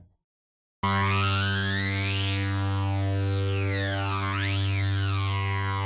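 Sampled retro synthesizer patch, resampled from an old Ensoniq ASR sound set, playing one held low note. A bright sweep glides up and down through its overtones. It starts about a second in.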